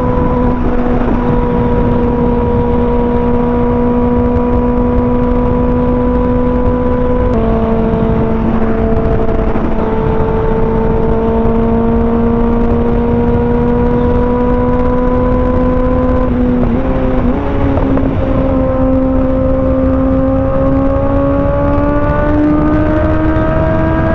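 2025 Kawasaki ZX-6R's 636 cc inline-four engine running at a steady cruise over a constant rushing noise. Its note drops slightly about seven seconds in and breaks briefly around seventeen seconds in. It then climbs steadily as the bike accelerates.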